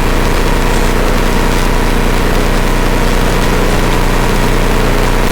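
Flight Design CTLSi's Rotax 912 iS four-cylinder engine running steadily, heard from inside the cockpit as a constant drone.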